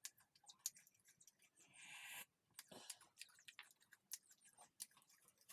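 Close-up chewing of crispy fried snacks: soft crunches and mouth clicks, with a short hissing sound about two seconds in.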